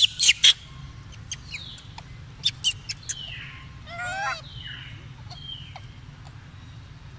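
Several sharp clicks in the first three seconds, the loudest right at the start. Then, about four seconds in, a short wavering high-pitched animal call, over a steady low hum.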